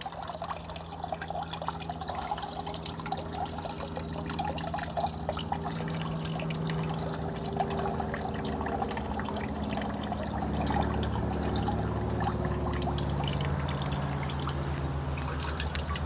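Water trickling and splashing down a carved wooden fountain, growing gradually louder as the pump's ball valve is opened up toward full flow, with a low hum underneath.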